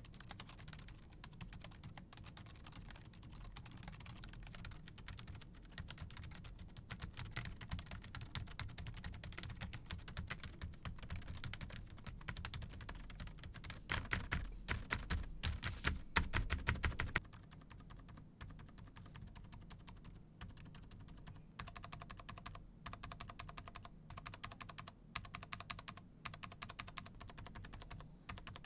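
Typing on a Redbean A1 mini mechanical keyboard fitted with Outemu low-noise switches (Lime and Peach): soft, muted keystrokes. About halfway through comes a stretch of roughly three seconds of fast, hard typing, the loudest part, before lighter typing resumes.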